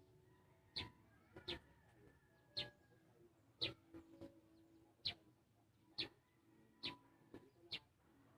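A small bird chirping: about eight short, high chirps, each falling in pitch, roughly one a second at uneven spacing.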